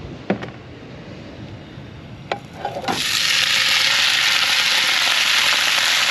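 A few light knocks, then about three seconds in a loud, steady sizzle starts suddenly: leftover chicken, capsicum, zucchini and onion frying as they are heated in a hot pan.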